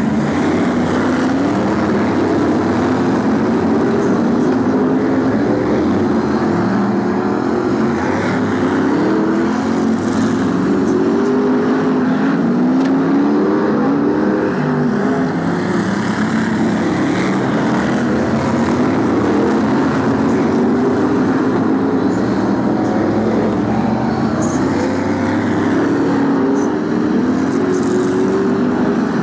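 Several BriSCA F1 stock cars' V8 engines racing together, their pitch rising and falling over and over as the cars accelerate down the straights and lift off into the turns.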